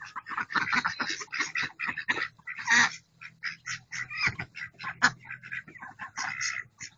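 A flock of domestic ducks, white Pekin ducks among them, quacking in rapid, overlapping short calls.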